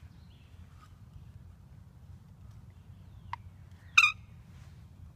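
A sharp turkey cluck, then about a second later one loud, short turkey yelp note, over a low steady rumble.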